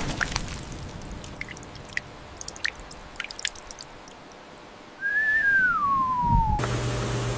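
The tail of a rainstorm dies away, leaving scattered water drips. About five seconds in, a single whistle glides down in pitch for about a second and a half. Near the end a steady machine hum starts.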